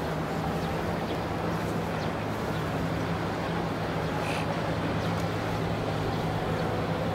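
Sightseeing boat's engine running steadily: a constant low hum over a wash of water and air noise.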